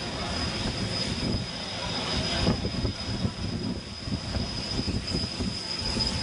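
Jet noise from a Boeing C-17 Globemaster III's four turbofan engines as the big transport flies low toward the crowd: a steady rushing noise with a rumbling low end.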